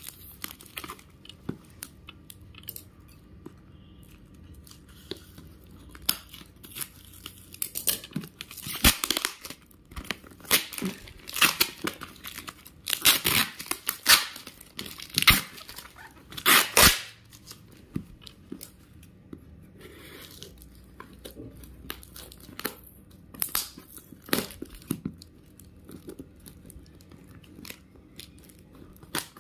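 Brown packing tape and plastic wrapping being torn off a parcel and crumpled by hand: irregular rips and crinkles, loudest and busiest in the middle.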